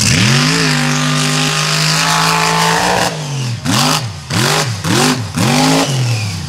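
Mega truck engine revving hard. It climbs and holds at high revs for a few seconds, then drops and rises and falls four times in quick succession.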